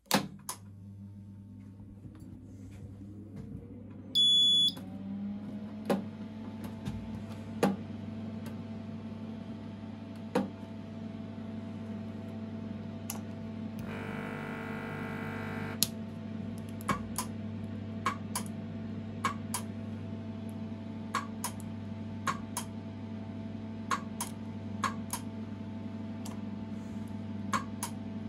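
Karl Storz 600 endoscopy flash generator switched on with a click: a steady mains hum starts, a whine rises in pitch and levels off as the unit powers up, and a short, loud high beep sounds about four seconds in. About halfway through, its insufflation pump runs with a buzz for about two seconds, and sharp clicks recur, more often in the second half.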